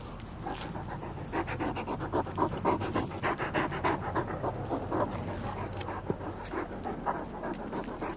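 A large dog panting quickly and rhythmically close to the microphone, its breaths starting about half a second in.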